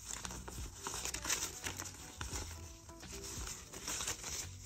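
Paper dollar bills rustling and crinkling as cash is handled and stuffed into a paper budget envelope, with soft background music.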